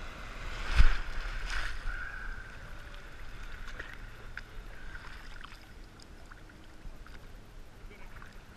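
Broken wave's whitewater washing over a GoPro camera held at the sea surface. A loud splash hits the housing about a second in and a smaller one follows, then the water laps and sloshes around the camera.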